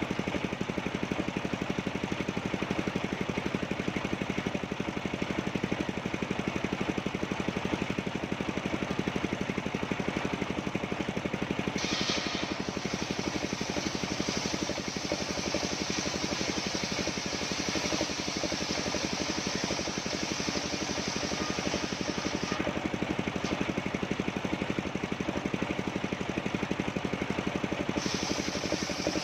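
Engine of a portable sawmill running steadily with a fast, even firing rhythm. A higher hiss comes in about twelve seconds in, stops about ten seconds later and returns near the end, as the saw cuts through coconut-palm wood.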